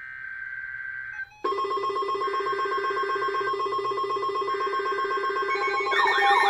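Electronic emergency alert tones layered on top of each other. A single steady tone sounds for about a second, then a dense chord of many tones with a fast even pulse comes in, and near the end wailing, siren-like sweeps join it.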